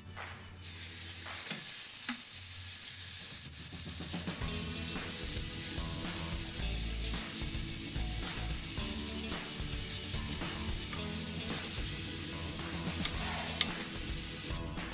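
Ground pork hitting hot oil in a cast iron pan with onion and garlic, sizzling that starts suddenly about a second in and carries on steadily, while a wooden spatula scrapes and stirs the meat around the pan to brown it.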